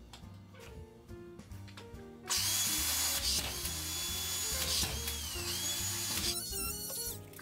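Power drill running at speed for about four seconds, starting about two seconds in, its whine sagging briefly in the middle before it stops abruptly.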